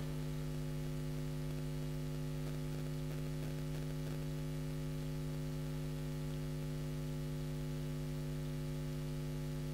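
Steady electrical mains hum: a constant low buzz made of several fixed tones, unchanging in level.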